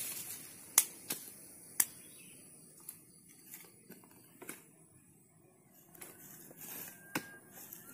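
Scattered sharp clicks and knocks, about six in all at irregular intervals, over a faint steady high hiss; a thin whistle-like tone starts near the end.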